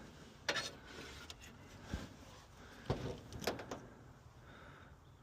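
A few scattered sharp clicks and knocks from hands and tools handling parts of a gas furnace: one about half a second in, one near two seconds, then a small cluster near three seconds. After that it settles to a faint background.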